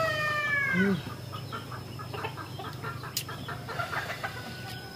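Rooster crowing: the drawn-out last note of the crow, falling slightly in pitch, ends about a second in. Then hens cluck more quietly, with one sharp click near the middle.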